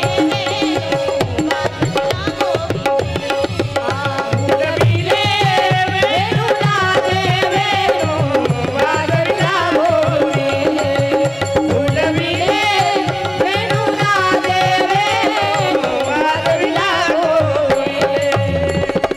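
Devotional kirtan music: tabla playing a fast, steady rhythm under a held drone note, with a voice singing long, wavering melodic phrases from about five seconds in.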